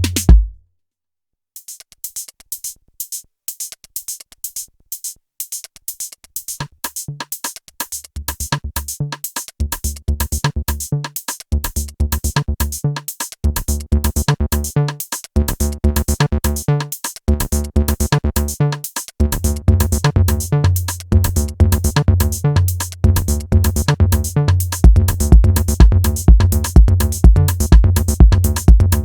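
Roland TR-8 drum machine with bass and lead synthesizers playing a techno-style jam. The beat stops abruptly at the start and there is a brief silence. Fast hi-hat ticks then come back, and kick drum and bass line notes are brought in step by step until the full pattern is running, loudest near the end.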